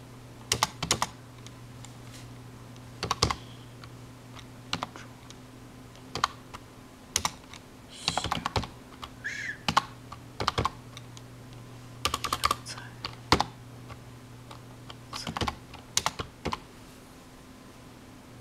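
Typing on a computer keyboard: irregular runs of keystrokes with short pauses between them, over a low steady hum.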